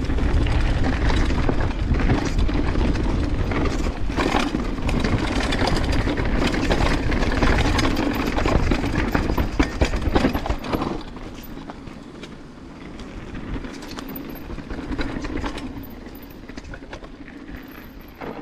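Banshee Legend downhill mountain bike ridden over a rough trail: tyre and wind noise with a constant clatter of knocks, including the chain rattling, a chain slap the rider has not yet cured. Much quieter from about eleven seconds in, then fading out.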